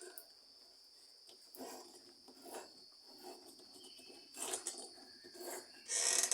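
Short rubbing and scraping sounds of hands working on a washing machine's drive belt and pulley, coming about once a second, the loudest near the end, over a faint steady high-pitched whine.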